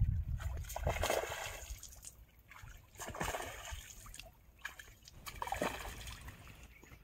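A hooked fish thrashing at the water's surface as it is played on a rod and lifted out: three separate splashes, about two seconds apart, over a low rumble in the first second or so.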